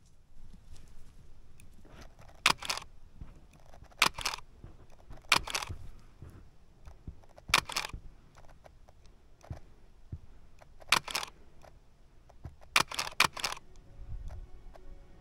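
Nikon D4s DSLR shutter firing: single frames a second or more apart, each a sharp double click of mirror and shutter, then a quick burst of three frames near the end.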